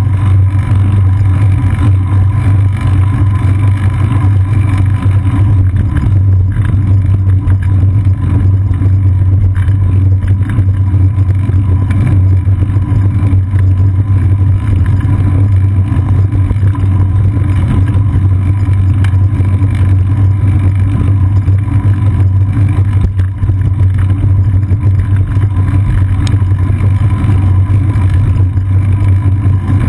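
Loud, steady low rumble from a seat-post-mounted GoPro Hero 2 on a bicycle riding a paved path into a strong wind: wind buffeting and road vibration carried through the mount.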